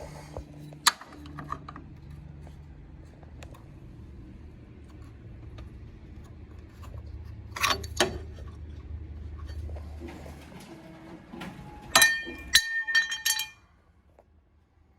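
Metal hardware clinking and jangling with a ringing tone, in a short cluster near the end, after scattered clicks and knocks over a steady low hum that cuts off suddenly just before.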